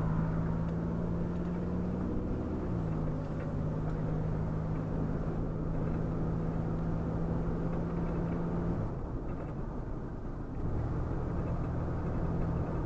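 A vehicle driving along, its engine droning steadily over road noise. The engine note shifts about two and a half seconds in, eases off around nine seconds, and picks up again a couple of seconds later.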